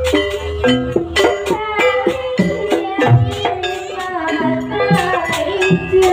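Music for a Banyuwangi barong dance performance: a melody over regular percussion strikes.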